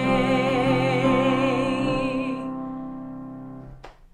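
A woman's singing voice holds the final sung note with vibrato over a sustained musical accompaniment. The voice and accompaniment fade out over the next second or so, and a short click comes near the end.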